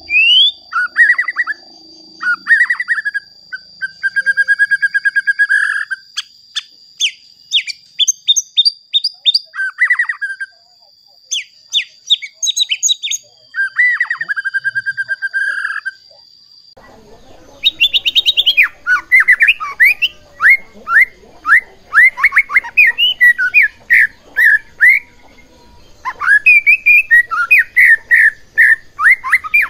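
White-rumped shama singing a varied song of loud whistles, rapid trills and sharp chipping notes. About halfway through it switches to a faster, denser stretch of song. A thin, steady high whine runs under the first half.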